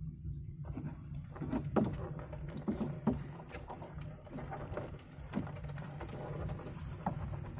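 Light clicks and scrapes as a live crab is handled and bound with string, over a steady low rumble.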